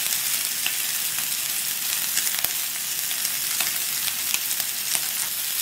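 Beef steak sizzling steadily as it sears over high heat in a non-stick frying pan with no oil, with scattered small pops and crackles.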